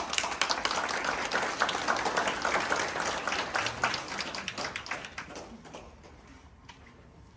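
Audience applauding, a dense patter of many hands clapping that thins and fades out about five to six seconds in.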